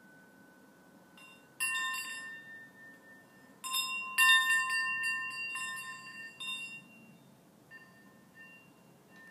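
Small Swiss cowbells hanging from the swaying mobile strike and ring out about four times, the loudest about four seconds in. Each ring fades over a second or two, and fainter tinkles follow near the end.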